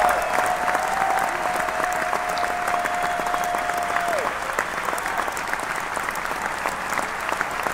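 Crowd applauding, a dense steady clatter of many hands, with one high held cheer from the crowd that drops away about four seconds in.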